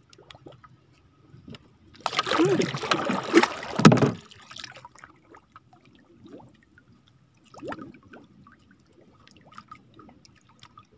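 Water splashing and sloshing against a small canoe for about two seconds, starting about two seconds in, then faint drips and small ticks while a fishing handline is hauled in by hand over the side.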